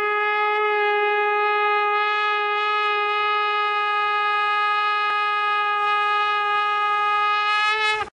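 Conch shell (shankha) blown in one long steady note for about eight seconds, wavering slightly just before it cuts off abruptly.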